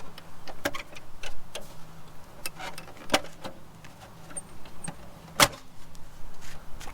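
Plastic Aero wheel cover being pulled off a Tesla Model 3 wheel: a series of sharp clicks and snaps as its clips let go, the loudest about three and five seconds in.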